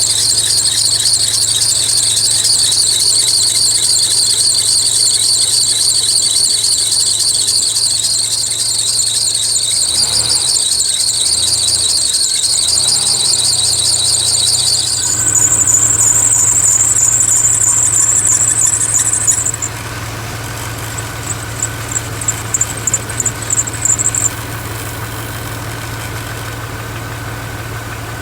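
Chevrolet S10 Blazer engine running with a loud, high-pitched squeal from the serpentine belt drive that a new tensioner has not cured. The owner suspects another, loose idler pulley. About halfway through the squeal jumps higher, then breaks into intermittent squeaks and stops, leaving the engine running steadily.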